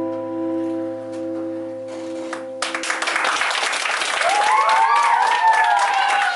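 A school band's last chord, held on keyboard and acoustic guitar, rings steadily, then cuts off about two and a half seconds in as clapping breaks out. Children's voices call out and cheer over the applause.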